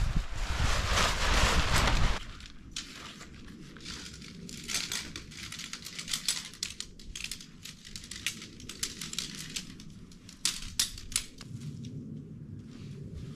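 Wind buffeting the microphone and the rustle of a packed tent being pulled out of a bike's handlebar bag. About two seconds in this drops to a run of light clicks, ticks and crinkling as aluminium tent pole sections are fitted together and handled.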